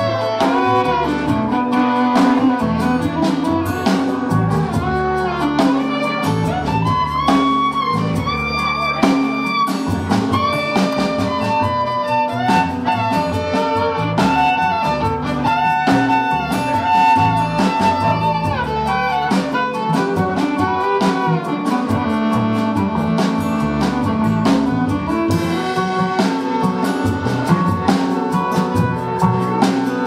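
Live band playing an instrumental break: a fiddle carries the melody with slides and vibrato over strummed acoustic guitar, with upright bass and drums underneath.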